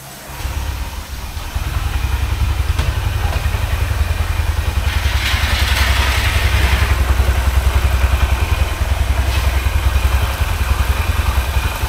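Honda SP 125's single-cylinder engine starting and settling into a steady idle. A spray can hisses for about two seconds midway, the chain being lubricated.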